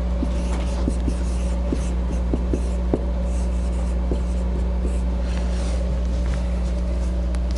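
Dry-erase marker writing on a whiteboard: short strokes and taps scattered through, over a steady low hum from the room.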